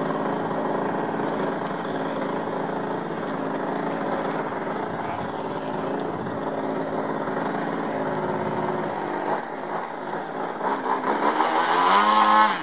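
Engine and 27x12 propeller of a giant-scale RC Extra 330SC aerobatic plane running steadily, then its pitch wavering and rising as it grows louder, cutting off suddenly at the end.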